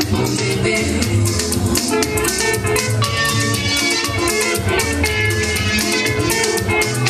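Upbeat music with a steady shaker rhythm over plucked guitar, bass and drums.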